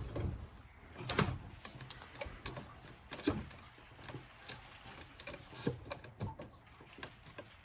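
Scattered light clicks and knocks of small objects being handled, the sharpest about three seconds in.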